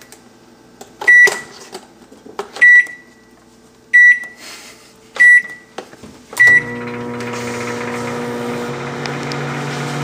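Microwave oven keypad beeping as its buttons are pressed: five short, high beeps, each with a faint click, over about six seconds. About six and a half seconds in, the oven starts cooking and runs with a steady hum.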